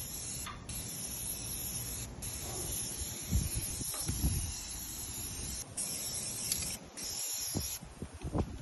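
Aerosol spray-paint can hissing in long sprays, stopping briefly several times between strokes. A few low thuds sound in the middle.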